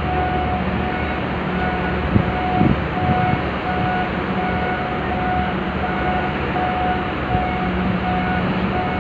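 Steady machinery drone and noise, with a repeating electronic warning beep sounding a little more than once a second, like a reversing or motion alarm, and a couple of short knocks about two seconds in.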